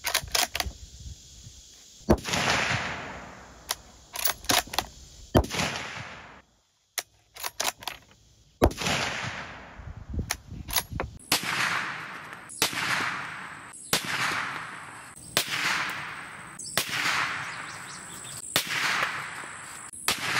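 A series of rifle shots from a Ruger American Ranch in 350 Legend, each a sharp crack with a short echo tail. The first few are spaced several seconds apart with clicks of the bolt being worked between them, and the later ones come in quick succession about every second and a half.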